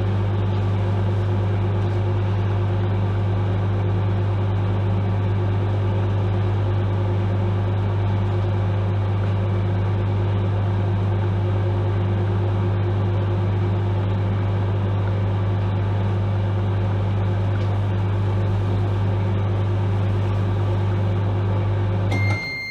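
Microwave oven running with a steady low hum while it heats chocolate Creme Eggs. Near the end the hum cuts off suddenly and the microwave's high end-of-cycle beep starts, signalling the timer has finished.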